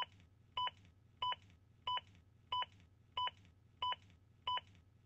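ZOLL AED Plus CPR metronome beeping: short, identical electronic beeps repeating evenly a little over one and a half times a second, pacing chest compressions to push the rescuer to compress faster.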